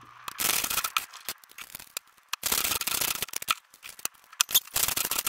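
Quarters being hand-rolled: coins scraping and clinking on a wooden desk as they are fed through a plastic funnel into a paper coin wrapper, with a run of quick rubbing and many sharp clicks.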